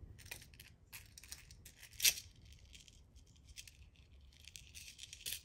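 Costume jewelry being handled: a necklace's metal chain and pendants clinking and rattling in scattered light clicks, with one louder click about two seconds in.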